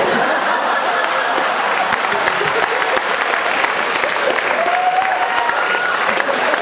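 Live audience laughing and applauding after a punchline: a steady, dense wash of clapping that sets in suddenly, with a few voices rising out of it.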